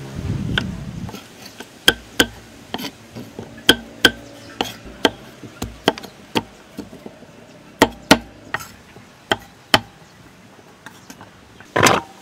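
Cleaver chopping papaya on a thick wooden chopping block: a string of sharp, irregular knocks as the blade cuts through and strikes the wood. A louder, longer noise comes near the end.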